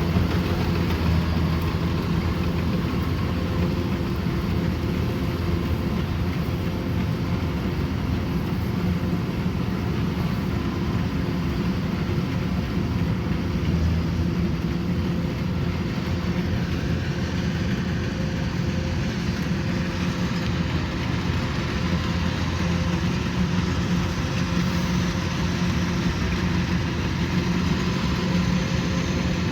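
Kubota rice combine harvester running steadily, its engine holding a constant working speed.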